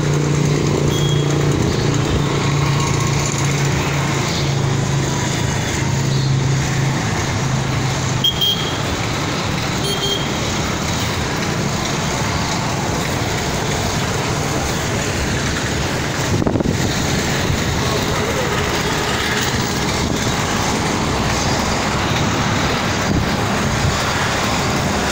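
Steady road traffic noise from passing vehicles, with a low hum that fades out about eight seconds in.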